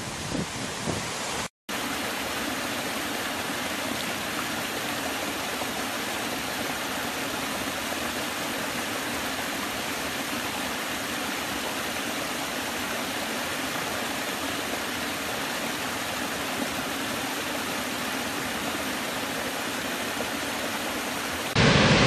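Small woodland stream spilling over low rock ledges: a steady, even rush of water. It is preceded by a brief gusty stretch of a larger waterfall that cuts off about a second and a half in, and a louder waterfall rumble cuts in near the end.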